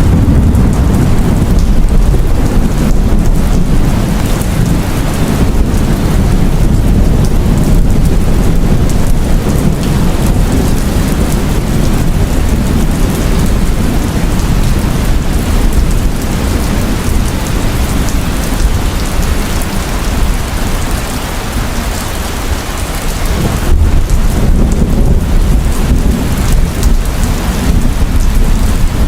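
Heavy rain pouring steadily, with a deep low rumble of thunder underneath that eases a little in the middle and swells again near the end.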